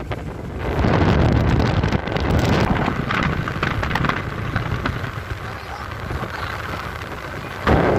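Wind buffeting the microphone on the open deck of a moving boat: a rough rushing noise that eases about three seconds in and surges back loud near the end.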